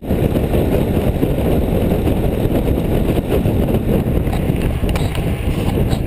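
Wind buffeting the microphone of a camera riding on a road bike at speed: a steady, loud, low rushing noise.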